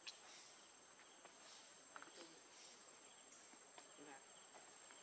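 Faint steady high-pitched insect drone, with a few faint short rising-and-falling calls.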